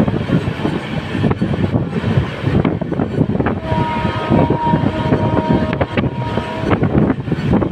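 A WAP7 electric locomotive's horn sounds one blast of about three seconds, two notes together, starting about three and a half seconds in. It is heard over the rumble and rail clicks of the moving train, with wind noise.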